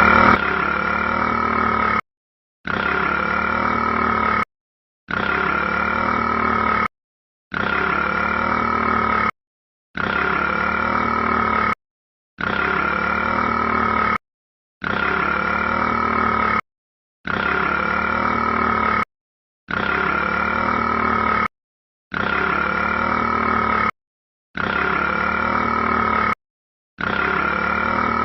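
A rat's burp-like sound, the same short clip looped about twelve times: each roughly two-second repeat is cut off by half a second of dead silence. A steady high tone runs through every repeat.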